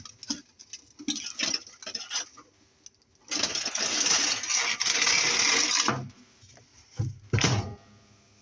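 Chicken pieces and an air fryer basket being handled: a few short rattles, then about three seconds of steady scraping, then two knocks near the end.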